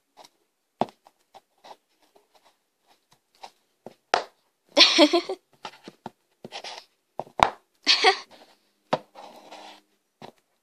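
Toy ponies being handled and pushed about on a table smeared with toothpaste: scattered taps and clicks, with a few short scraping, squishing noises, the sharpest click about seven seconds in.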